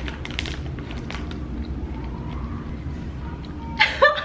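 Plastic snack bag crinkling in a few short crackles in the first second, over a steady low background rumble, then a woman bursting into loud laughter near the end.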